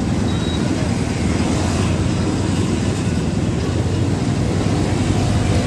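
Steady low rumble of city street traffic, with motorbikes passing.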